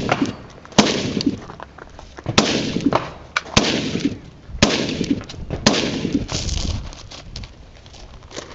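Gunshots during a 3-gun match stage: about six single shots, roughly one a second, each with a short ring-out after it.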